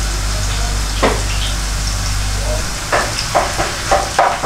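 Sauce bubbling and sizzling in a pan as ginger-garlic paste is stirred in, with several short strokes of a silicone spatula through it near the end. A low hum cuts off about halfway through.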